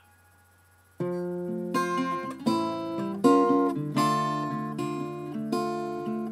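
Acoustic guitar intro: after about a second of near silence, chords begin ringing out, struck about every three-quarters of a second.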